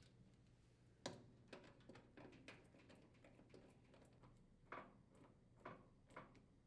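Faint, irregular clicks and ticks of a screwdriver or square-drive bit working screws out of a dryer blower housing, with the odd light metallic tap. The sharpest click comes about a second in.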